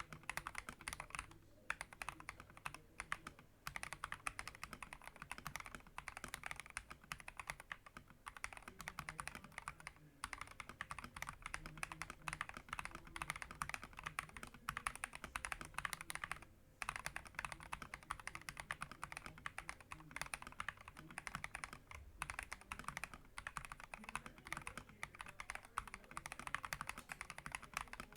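Fast continuous typing on an FL eSport MK870 mechanical keyboard with Akko Rose Red linear switches and PBT XDA keycaps, a dense run of key clacks with a few brief pauses.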